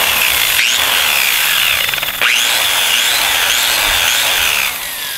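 Ryobi angle grinder with a wire brush wheel scrubbing a fresh weld on a steel sprocket and axle. It runs loud with a high whine that dips each time it is pressed into the metal, breaks off and bites again about two seconds in, and near the end is eased off and starts to wind down.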